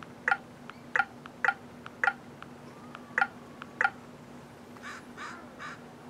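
A crow cawing: six short, sharp caws at uneven intervals, followed near the end by three fainter, hoarser calls.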